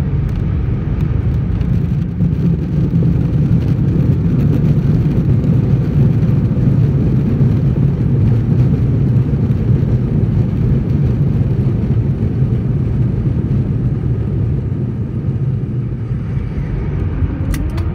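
Airliner cabin noise while rolling along the runway after landing: a steady low rumble of the engines and wheels on the tarmac.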